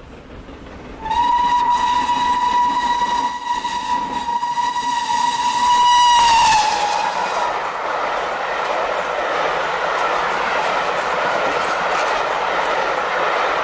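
A steam locomotive whistle sounds one steady note for about five seconds, then sags in pitch as it is shut off. A steady rushing noise follows.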